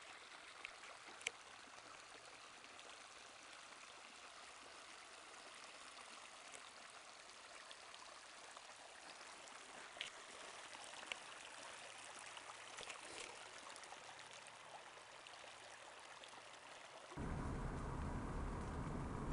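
Shallow runoff stream trickling over rocks and gravel, a faint even rush of water with a few small ticks. About 17 seconds in it cuts abruptly to the louder, steady low rumble of road noise from a moving car.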